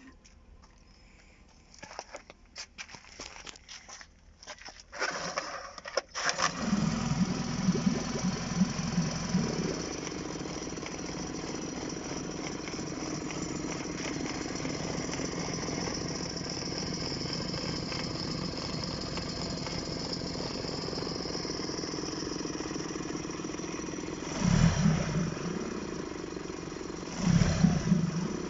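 Suzuki DF20 four-stroke, two-cylinder outboard motor, freshly overhauled, shutting off and then being restarted. After a few seconds of quiet broken by irregular clicks and knocks, it catches about six seconds in. It runs unevenly at first, then settles into a steady idle, and the throttle is blipped twice near the end.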